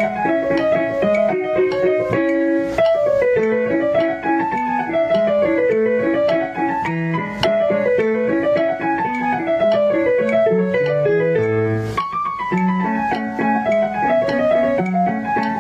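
Background music led by a keyboard playing repeating runs of notes that fall and rise, over a steady accompaniment.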